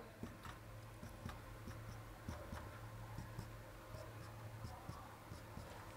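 Marker pen faintly scratching and tapping on a whiteboard in a series of short strokes, over a steady low room hum.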